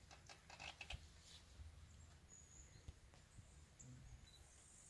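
Near silence: faint outdoor room tone with a low hum, a few faint clicks in the first second and a brief high chirp about two seconds in.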